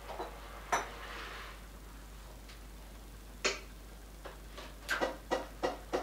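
Krups XP 3440 espresso machine being handled: a sharp knock about a second in and another click midway. Near the end come regular ticks, about three a second, typical of the machine's pump pulsing as it comes up to steam.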